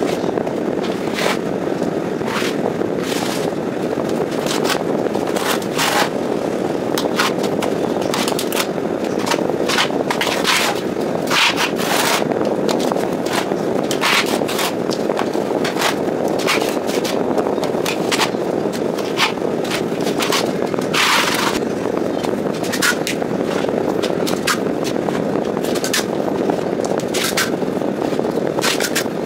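Plastering trowel scraping across a wall as a cement skim coat is spread and smoothed, in short irregular strokes, over a steady low rushing background noise.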